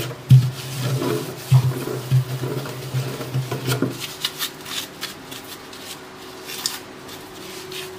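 Scouring pad scrubbing around the drain of a stainless steel kitchen sink: rubbing strokes and light clicks, busier in the first half and quieter after.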